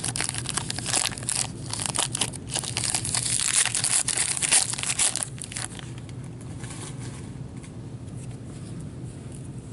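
Hockey card pack wrapper crinkling and tearing open under gloved hands, loud and dense for about five seconds. After that it drops to quieter, softer handling of the cards.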